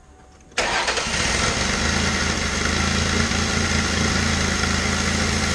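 2003 Mercury Sable's 3.0-litre V6 starting about half a second in and settling straight into a steady idle. The engine's rear-bank catalytic converter is clogged.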